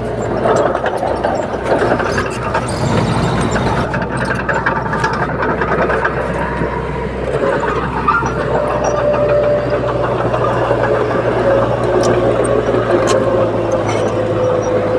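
Heavy diesel earthmoving machinery running steadily under load, with scattered metallic clanks; a steady whine joins about eight seconds in.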